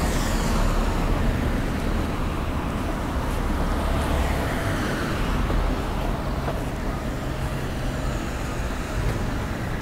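Road traffic: cars driving past on a city street, a steady wash of engine and tyre noise.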